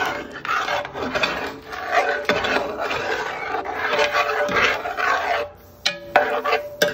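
Utensil scraping and stirring through chicken and gravy in a big pot, breaking up the stewed meat. Rasping scrapes run for about five seconds, then ease off into a few sharp taps near the end.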